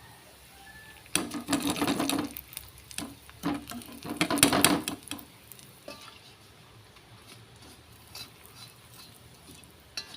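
A metal utensil scraping and clattering against a wok in two bursts, one about a second in and a longer one around four seconds in, with a few light clicks after. This is the sound of golden fried garlic being scooped out of hot oil.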